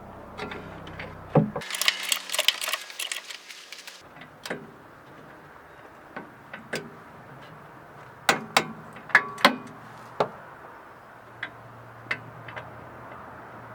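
Scattered metallic clinks and knocks of tools and brake parts being handled, with a dense rattling burst about two seconds in and a run of sharper knocks around the eight-to-ten-second mark.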